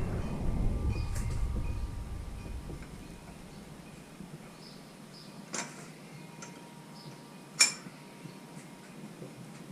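A low rumble fades out over the first few seconds. Then come small metallic clicks and clinks of parts being handled: a sharp click about five and a half seconds in and a louder one about two seconds later.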